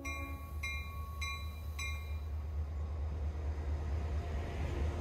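Grade-crossing warning bell striking four times, about one strike every half second, as the tail of a train horn blast dies away at the start. Under it runs the steady low rumble of a train.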